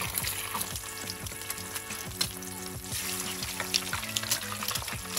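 Eggs frying in hot oil in a shallow metal pan: a steady sizzle with scattered sharp crackles and pops.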